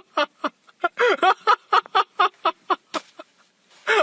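An animal's voice in a rapid run of short, pitched calls, about four or five a second, with a brief pause near the end before the calls start again.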